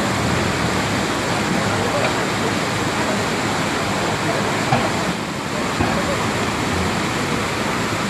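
River in flood, a fast brown torrent rushing past: a loud, steady rush of water, with two small knocks about halfway through.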